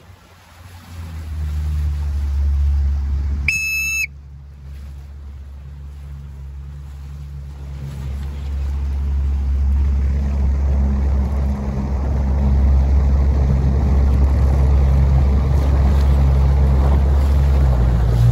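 Motorboat engine running steadily with wind and water noise, getting louder in the second half. About three and a half seconds in, a short whistle blast sounds once.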